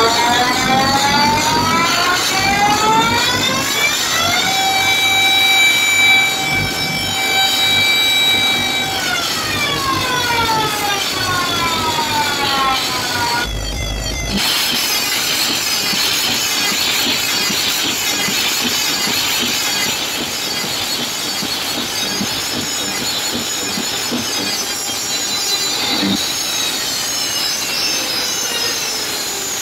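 Loud electronic sound over a big stage sound system. A many-toned pitched sweep rises over the first few seconds, holds, then glides back down. The sound cuts out for a moment about fourteen seconds in, then gives way to a dense, noisy wash.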